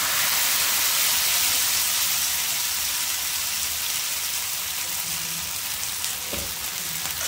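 Green-chickpea batter frying in hot mustard oil in a nonstick pan: a steady sizzle, loudest as the batter first hits the oil and easing slightly after. A short soft knock about six seconds in.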